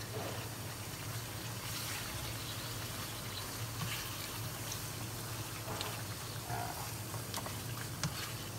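Beef shank chunks in a thick spice paste simmering and bubbling in a nonstick wok while a plastic spatula stirs and scrapes them, over a steady low hum. A sharp click of a utensil against the pan near the end.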